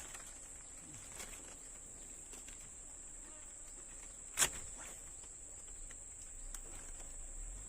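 Steady high-pitched drone of insects, with one sharp click about four and a half seconds in and a fainter tick near the end.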